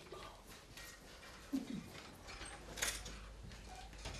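A door swinging shut: a short creak, then a sharp click as the latch catches, among faint knocks and rustles.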